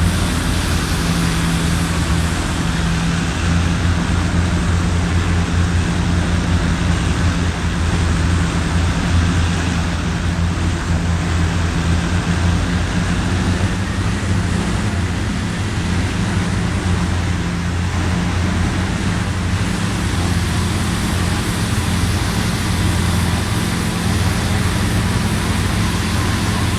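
Strong wind and rain noise on the microphone over a steady low drone that runs throughout without letup.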